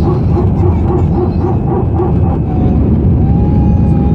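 Cabin noise of an Airbus A320-214 in its initial climb after takeoff, its CFM56 engines at climb thrust: a loud, steady roar with a hum that throbs about three times a second, giving way to a steady whine about three seconds in.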